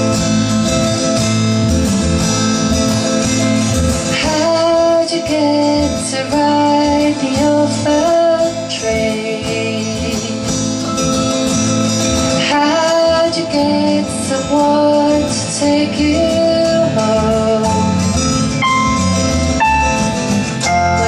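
A woman singing a song to her own strummed acoustic guitar. The guitar plays alone at first, and the voice comes in about four seconds in.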